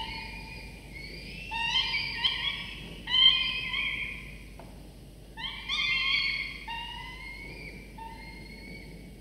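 Peregrine falcon chicks giving begging calls while being fed: several wailing, squealing calls in bursts of one to two seconds, loudest a little after three seconds in.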